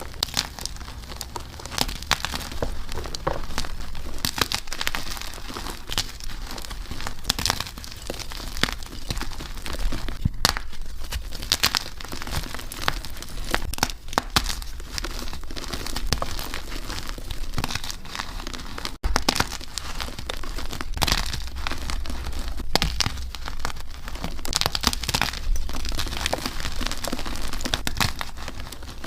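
Gym chalk being crumbled, a dense run of crunchy crackles and small snaps with a brief break about two-thirds of the way through.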